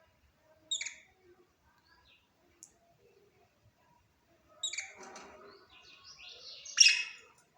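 Budgerigar chirping: a short high call about a second in, then a run of warbling chatter from about halfway that ends in a loud, high call near the end.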